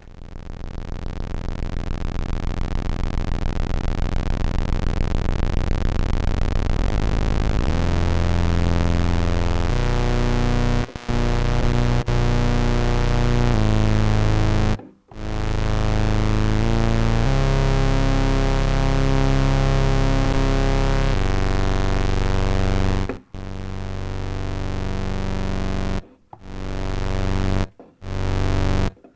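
ARP Avatar analogue synthesizer playing sustained notes through its VCA and ADSR envelope. The sound swells in over the first few seconds, then steps to new pitches every few seconds. Each note cuts off abruptly, leaving short silences, while the envelope's release stage is faulty.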